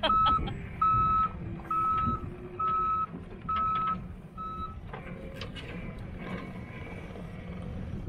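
John Deere 317G compact track loader backing up: its backup alarm beeps six times, about one beep a second, over the running diesel engine. The beeping stops about halfway through and the engine runs on as the machine moves off, with a few knocks.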